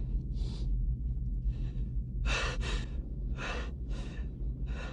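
Heavy breathing through an aircrew oxygen mask, about one breath a second, the strongest about halfway through, over the steady low drone of a B-52 bomber's cabin.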